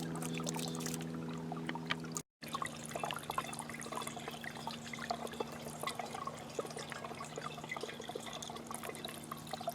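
Water from a solar-powered fountain pump splashing and trickling down a bird bath of stacked clay pots and saucers, with a steady low hum underneath. The sound breaks off for a moment about two seconds in.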